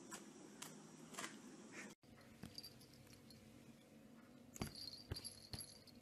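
Faint taps and rustles of pets moving, with a few light jingling clicks about two-thirds of the way through.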